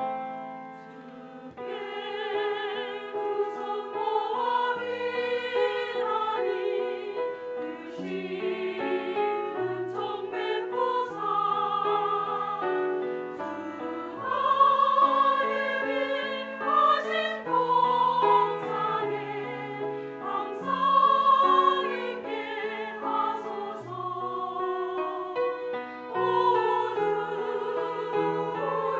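Women's church choir singing a hymn in parts with vibrato, with piano accompaniment.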